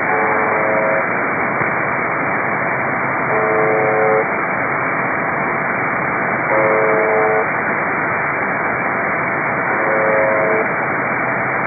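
The Russian shortwave "Buzzer" station UVB-76 on 4625 kHz, heard through a receiver: a harsh buzz about a second long, repeated four times roughly every three seconds, over a steady hiss of static.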